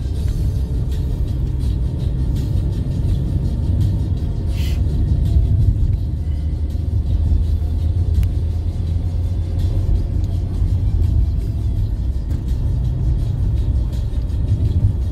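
Steady low rumble of a car's engine and tyres heard from inside the cabin while driving along a paved road, with one brief click about four and a half seconds in.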